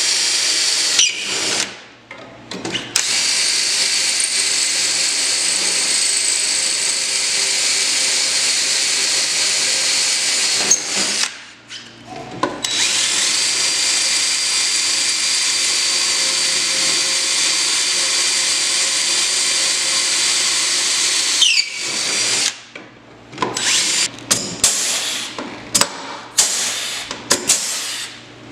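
DeWalt cordless drill boring out rivet holes through a metal bulkhead brace plate. It runs in long, steady stretches with short pauses between holes, then in a string of short bursts near the end.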